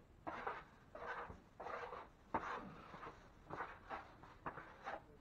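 Repeated short scraping strokes of a hand tool slicking quickset hot mud along the metal square corner bead of a ceiling soffit, about eight strokes, with a sharp click about two and a half seconds in.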